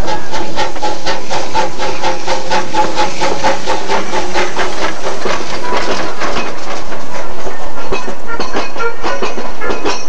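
Abukuma Express train running, its wheels clicking in a rapid, even rhythm over the rail joints for the first half, the clicks thinning out later, over steady running noise, heard as a cassette recording.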